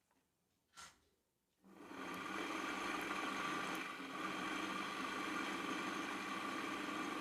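Farata fan's capacitor-run motor, with no blades fitted, switched on at mains supply about two seconds in: it spins up over half a second and then runs steadily with a hum and whir. Its broken running-winding lead has just been rejoined, and the motor now runs rather than sitting stalled and humming.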